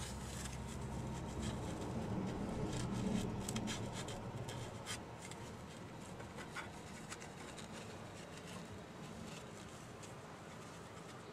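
Paper towel rubbing and wiping at the edges of a CPU to clear excess thermal compound: faint rustling and small scratchy ticks, busiest in the first few seconds and dying down after.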